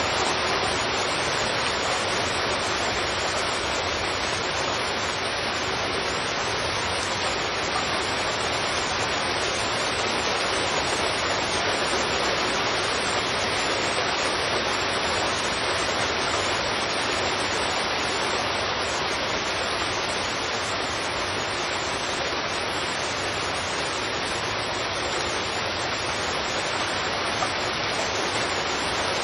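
Heavy rain falling steadily: a dense, even hiss with no separate drops, thunder or other events standing out.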